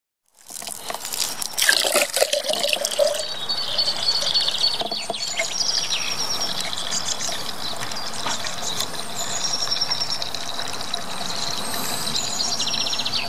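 Water pouring from a garden hose into a clay olla, an unglazed irrigation pot buried in the soil, as it fills. Birds sing in the background.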